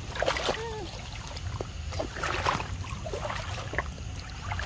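Light splashes and trickling in shallow floodwater, with a few scattered clicks and two louder splashy bursts about midway. A short arched animal call, rising then falling, sounds near the start.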